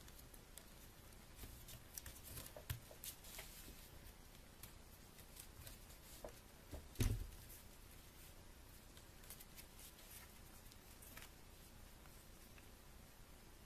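Sheet of paper being folded and creased by hand: faint scattered rustles and crinkles, with one louder thump about seven seconds in.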